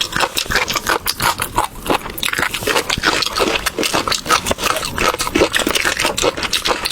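Close-up chewing of a crunchy chicken cartilage snack: rapid, irregular crunching and smacking, continuous throughout.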